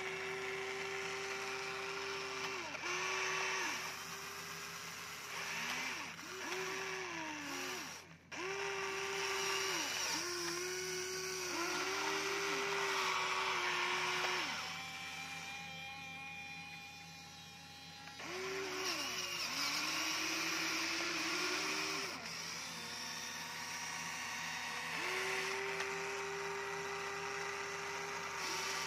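Small electric gear motors of a Huina radio-controlled toy excavator whining as the boom, arm and bucket move. They run in short bursts of a second or two, dipping in pitch as each burst starts and stops, with longer steady runs near the beginning and end.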